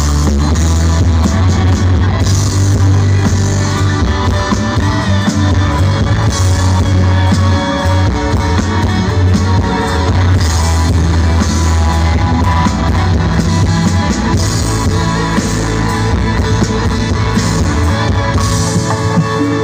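Live band playing through a large concert PA during a sound check, with drums, electric guitars and heavy bass under a singer's voice.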